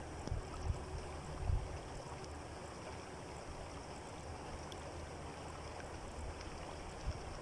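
Muddy flash-flood water flowing fast down a desert wadi past a stony bank, a steady rush of water. A few low bumps come in the first second and a half.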